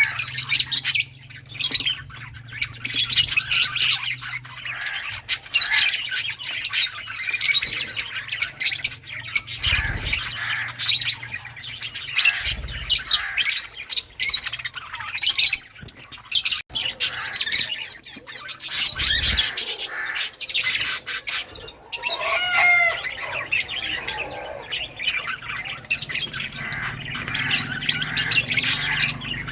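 A flock of pet lovebirds chattering, with dense, rapid, high-pitched chirps and squawks.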